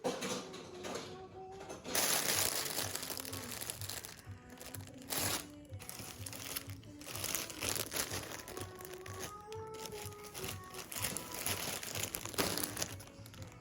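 Background music with a melody over repeated bursts of crinkling and rustling. The loudest burst comes about two seconds in.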